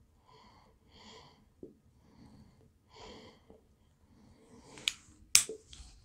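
Soft puffs of a tobacco pipe being drawn on while it is lit with a lift-arm butane lighter, three short draws, then two sharp clicks near the end as the lighter's lift arm snaps shut.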